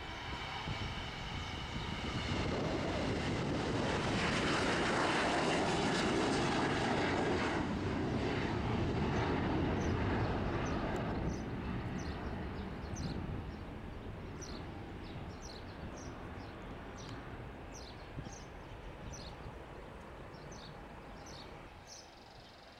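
Jet airliner passing by, its engine noise with a high whine swelling to a peak about five seconds in, then slowly fading away. Short high chirps, like small birds, come in over the fading noise from about ten seconds on.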